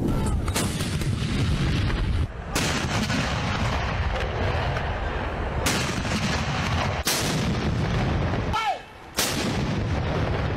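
Ceremonial artillery guns firing a gun salute: a series of loud booms a second or more apart, each followed by a long rolling echo.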